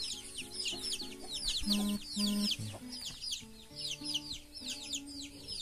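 Chicks peeping busily, a rapid stream of short high downward-sliding cheeps, with background music of sustained notes underneath.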